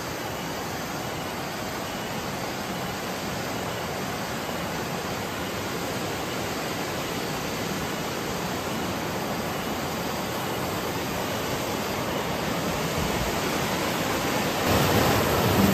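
Steady rushing of flowing river water, an even hiss that slowly grows louder. Music comes in near the end.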